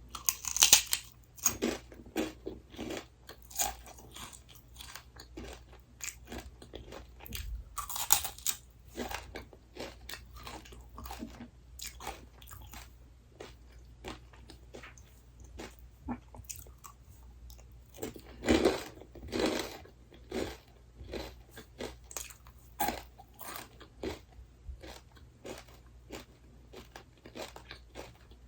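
Close-miked eating: a person biting and chewing crunchy fried or dried snack food, a steady run of crunching with a few louder bites scattered through.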